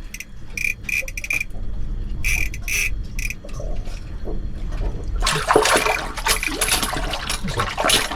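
Water splashing hard in an ice-fishing hole as a hooked lake trout thrashes at the surface, loud from about five seconds in. Before that come a few short high buzzing bursts.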